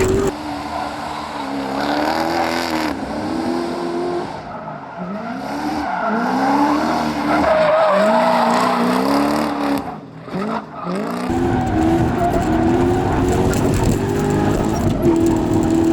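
Toyota 1UZ-FE V8 in a drift Miata revving up and down again and again through a drift, with tyres skidding and squealing. The engine drops off briefly near ten seconds, then pulls up again.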